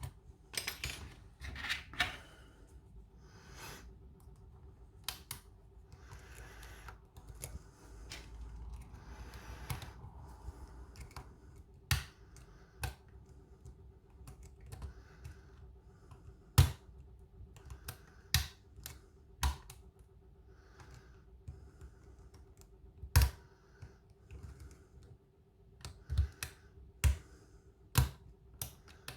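Single-pin picking of a pin-tumbler Kik cylinder: a lock pick scraping and tapping inside the keyway, first in a light rattling run and then as irregular sharp metallic clicks a second or two apart.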